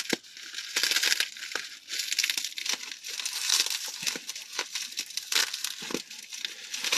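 Hands pulling apart and tearing tightly wound white packaging wrap: irregular crinkling and crackling.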